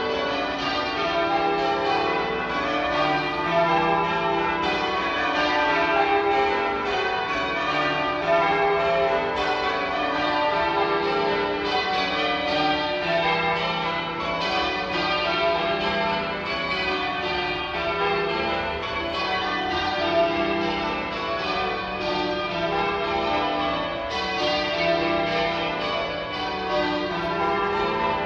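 Manchester Cathedral's church bells change ringing: a continuous, rapid succession of overlapping bell strokes at many different pitches.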